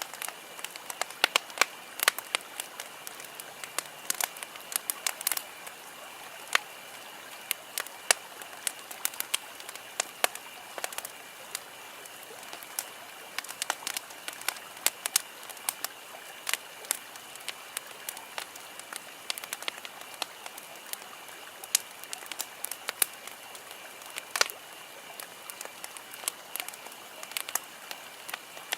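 Wood campfire burning, crackling and popping at irregular intervals over a steady hiss, some pops sharp and loud.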